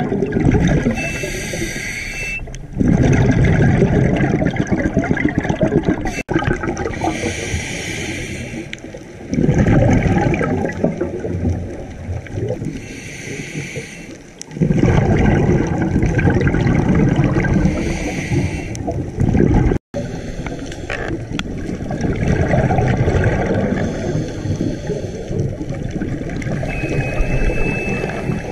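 Scuba diver breathing through a regulator, heard underwater: loud rushes of exhaled bubbles alternating with quieter hissing inhalations, a breath cycle every five or six seconds.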